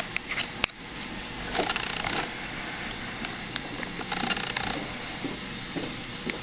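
Steady hiss with faint scattered clicks and two short scrapes: a metal cord-packing instrument working gingival retraction cord against the teeth of a plastic typodont.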